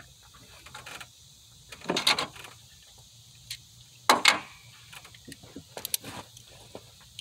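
Metal hand tools and sockets clinking and clattering in short knocks, with sharp clanks about two and four seconds in (the second the loudest) and a few lighter clicks near six seconds.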